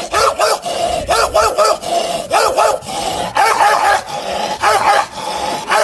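A person imitating a dog, barking in quick bursts of three or four yaps about once a second.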